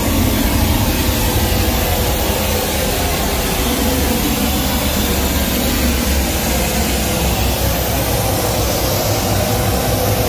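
Steady, loud hiss of a pink-noise test tone from a home theater's front right speaker, played by the AV receiver while its equaliser is adjusted band by band.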